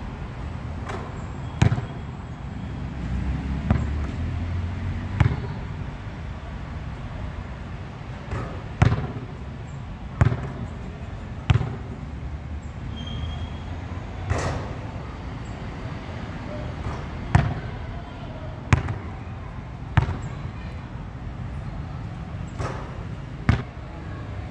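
A basketball thumping again and again during shooting practice, hitting the hoop and bouncing on a hard outdoor court: a string of sharp thuds spaced irregularly, a second or more apart.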